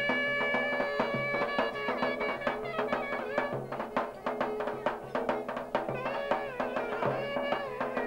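Turkish village wedding dance music: a reed wind instrument plays a melody over steady davul drum beats. The melody holds a long note at first, then breaks into quick ornamented runs.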